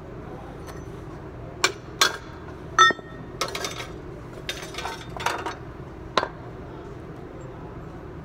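Sharp metal clanks and clinks, with rattling and scraping, from a Toyota Hilux front strut being taken apart. The coil spring, held compressed in a spring compressor, and the shock absorber knock against each other and are set down. One clank near the middle rings briefly, over a steady background hum.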